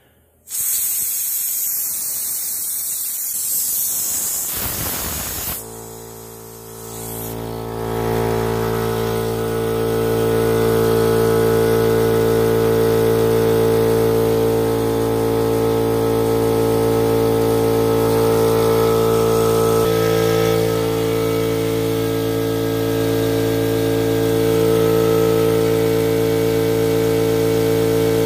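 Compressed air hissing out of a King Canada Flex Air 20-gallon compressor's tank. About five and a half seconds in, the pressure falls to cut-in and the compressor's electric motor and oil-lubricated piston pump start up, running steadily as they refill the tank.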